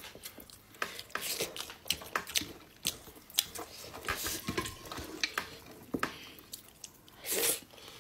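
Eating by hand: fingers working finger-millet dhido and greens on a metal plate, with scattered light clicks and ticks of food and fingers against the plate and chewing sounds. A short, louder breathy noise comes about seven seconds in.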